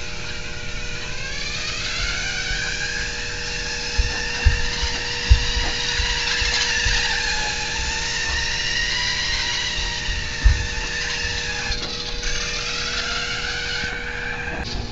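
Electric drive motors and gears of a small RC robot car whining, the pitch rising and falling slowly as it speeds up and slows, with a few dull knocks.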